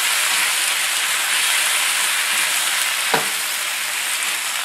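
Kale and sliced Chinese sausage sizzling steadily in hot oil in a stainless steel wok as they are stirred with a spatula, with one sharp knock about three seconds in.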